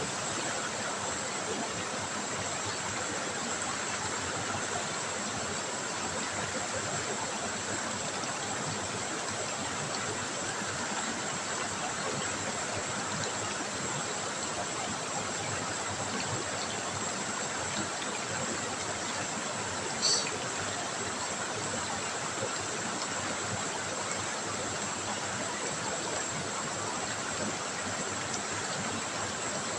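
River water trickling and running steadily, an even rushing hiss, with one brief high-pitched sound about two-thirds of the way through.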